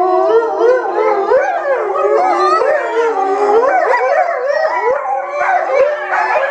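A pack of Chinese wolves calling all at once, many voices overlapping in wavering, gliding howls and yips.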